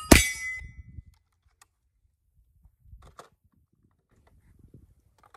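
One rifle shot just after the start, followed by a steel target plate ringing for under a second from the hit. Then a few faint clicks of the rifle being handled.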